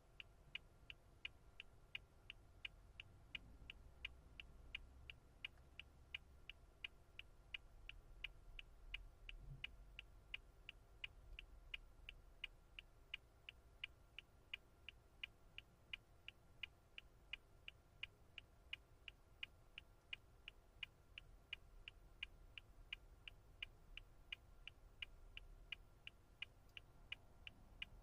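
Car turn-signal indicator clicking in a steady, even rhythm, about two and a half faint clicks a second.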